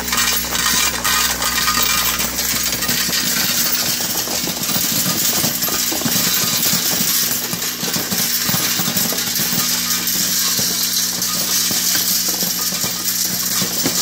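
Spent brass cartridge cases, a mix of 9mm, .223 and .308, clinking and clattering continuously as they pour down a steel chute and tumble in a rotating perforated stainless trommel drum. A steady machine hum runs underneath.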